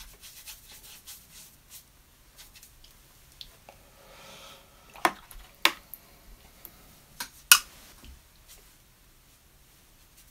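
A paintbrush clinking against a ceramic palette and water pot while being wetted and loaded: a soft scrub about four seconds in, then four sharp clinks over the next few seconds, the last the loudest.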